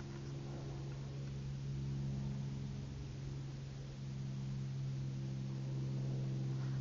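A steady low hum of several held tones with a faint hiss over it.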